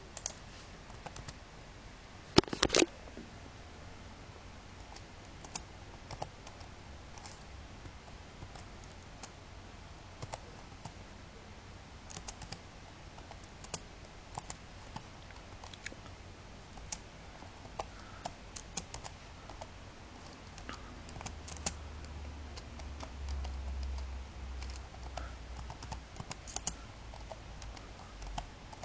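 Computer keyboard typed slowly and unevenly, one key at a time, with a cluster of louder clicks about two and a half seconds in.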